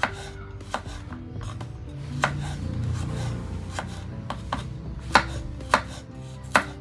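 Kitchen knife slicing fresh turmeric root thinly on a wooden cutting board. The blade knocks against the board in irregular, unhurried strokes, with the sharpest knocks in the second half.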